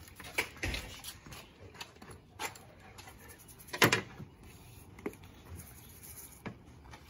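Short clicks, scrapes and knocks of a pizza being sliced on a metal pan, with one sharper knock about four seconds in.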